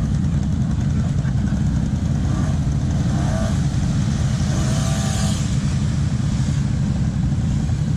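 Off-road vehicle engines running steadily with a heavy low rumble. A faint higher hiss swells for a moment about five seconds in.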